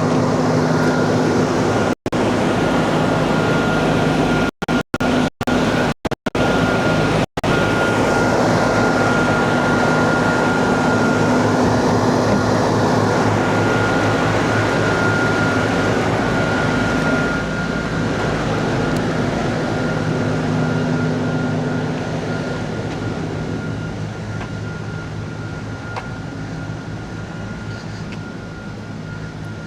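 Diesel engine of a piece of earthmoving equipment running steadily, with a constant high whine above the engine note. The sound cuts out completely for split seconds several times in the first quarter, and from about halfway it grows gradually fainter.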